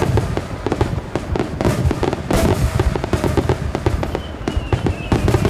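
Aerial firework shells bursting in a rapid, continuous barrage, the booms and crackles overlapping with no gap. A falling whistle begins about four seconds in.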